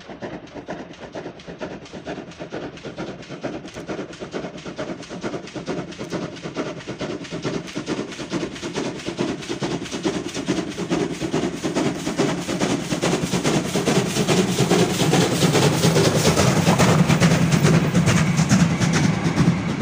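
DR class 35 two-cylinder steam locomotive working a passenger train, its exhaust chuffing in a quick, even rhythm that grows steadily louder as it approaches and is loudest as it passes close by near the end, with the carriages rolling past after it.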